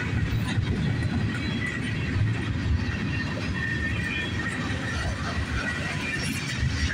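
Freight train tank cars rolling across a steel girder bridge: a steady heavy rumble of wheels on rail with a rapid clatter.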